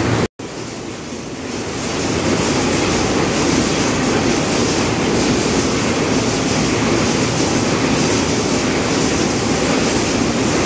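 Automatic cartoning and collating line running: steady machine noise of conveyors and packing machines, cut off for an instant just after the start, then a little quieter before settling back to a steady level.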